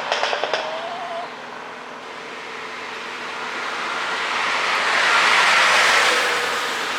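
A BMW 530i's turbocharged four-cylinder exhaust crackling and popping on overrun, the burbles of a pop-and-bang ECU tune, which stop about half a second in. Then a broad rush of car noise builds to a peak and eases off near the end.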